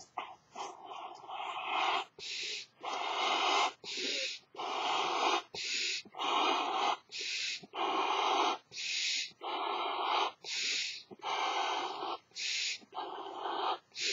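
A person blowing up a large elephant balloon by mouth: hard, regular breaths, each a quick hissing inhale followed by a long puff of air into the balloon's neck, repeating about every second and a half.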